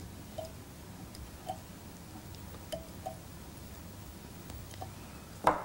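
Tying thread being wound from a fly-tying bobbin around the head of a wet fly: faint, scattered small ticks over a low steady hiss. A single louder short knock comes near the end.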